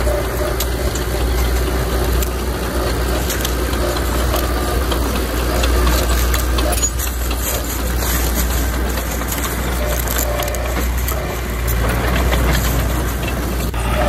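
Bulldozer's diesel engine running steadily, with scattered sharp cracks and clanks over it, thickest in the middle of the stretch; it eases off briefly near the end.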